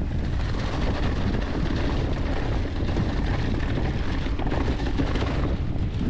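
Mountain bike rolling fast down a trail covered in fallen leaves. Tyres rumble and wind buffets the action camera's microphone, over a constant clatter of small knocks as the bike rattles over the ground.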